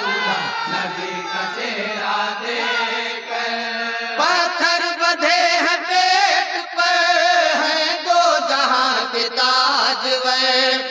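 A group of men singing a naat in chorus: long, wavering melodic lines over a steady held low note, growing louder and fuller about four seconds in.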